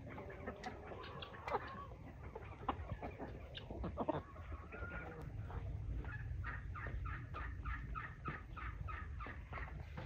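Domestic hens clucking: scattered short calls, then a quick, even run of clucks at about three a second over the last few seconds.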